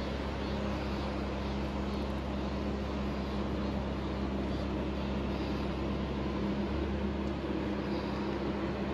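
A steady low mechanical hum with a constant pitch, unchanging throughout.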